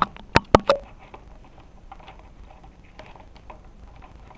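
Handling noise from an electric skateboard being worked on by hand: a few sharp knocks in the first second as the wheel and truck are moved, then faint clicks and rustling from hands at the motor cable plugs.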